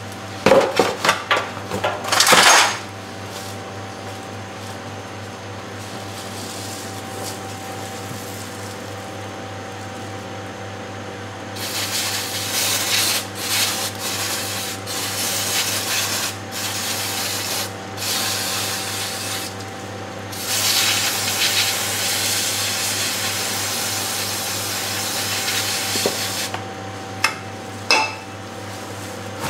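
A drain pan knocks several times as it is set down under the vehicle. From about twelve seconds in, an aerosol can of parts cleaner sprays in two long runs of short hissing bursts onto the mud-caked underside. A fan hums steadily underneath.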